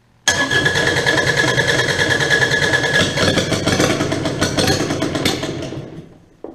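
Kubota D722 three-cylinder diesel cranked over by its electric starter with an injector line cracked to bleed air from the fuel system. It starts suddenly, a high steady starter whine runs for about the first three seconds, and it dies away about six seconds in.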